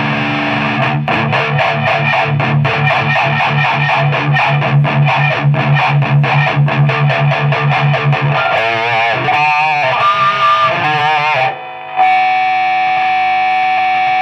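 Distorted electric guitar played through a Cry Baby wah pedal. It starts with a fast, evenly picked riff. Then come wobbling wah sweeps that bend the tone up and down, and near the end a long steady tone is held. The rig is squealing ("fiept"), which the player blames on the effects pedal being added to the chain.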